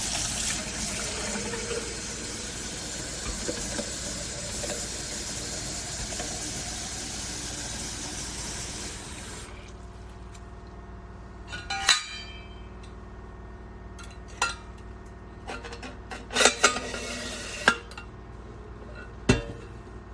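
Coffee pouring in a steady stream from a double-wall stainless steel French press into a cup. The stream stops about halfway through, followed by several sharp clinks and knocks of metal and crockery being handled.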